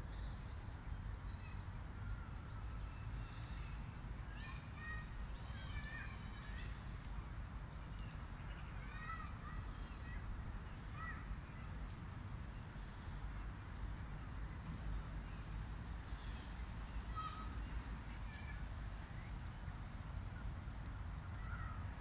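Small songbirds chirping and calling on and off, with short whistled notes, some sliding down in pitch, over a steady low rumble and a faint hiss.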